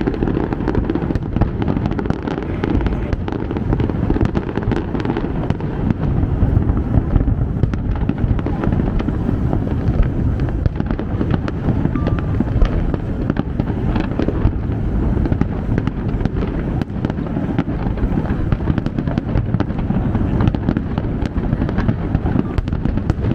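A massed New Year fireworks display: a continuous dense rumble of distant bursting shells, with many sharp bangs and crackles overlapping throughout.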